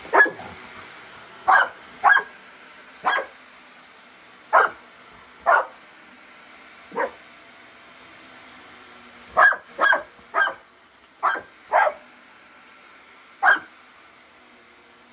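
A large dog barking: about a dozen short single barks at irregular gaps, with a quick run of barks in the second half.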